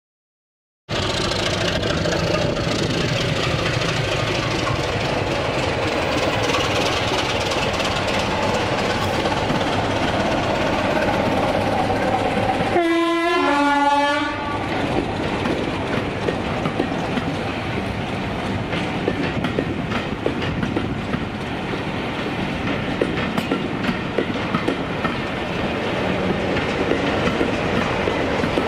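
Diesel-hauled heritage passenger train passing close by, starting about a second in, its coach wheels rumbling and clicking over the rail joints. About 13 seconds in, a locomotive horn sounds two tones, high then low.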